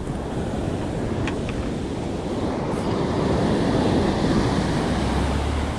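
Sea surf breaking and washing up the beach, swelling louder midway, with wind buffeting the microphone.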